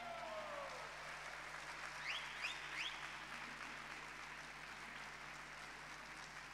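Faint audience applause after a drum piece ends, with three quick rising whistles about two seconds in.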